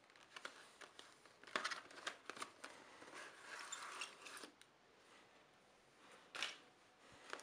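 Clear plastic blister packaging being pulled open and handled: faint, irregular crackles and crinkles, with louder bursts about a second and a half in and again near the end.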